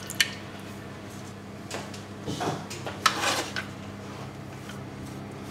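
Kitchen handling noises around a glass baking dish: a sharp click just after the start as the broth container is set down, then two brief scrapes around two and three seconds in as the dish is handled, over a low steady hum.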